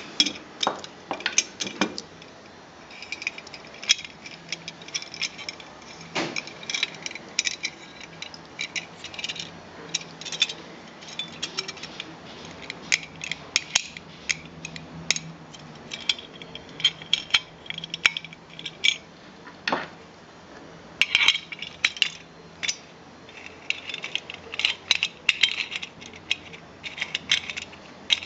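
Light metal clicks and clinks in irregular clusters from a small folding camping gas stove being handled: its steel pot-support arms are folded against the burner head and the wire valve handle taps against the body.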